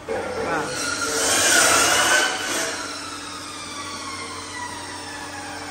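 Electric chop saw cutting through a wooden plank, loudest from about one to two and a half seconds in, then its blade spinning down with a slowly falling whine.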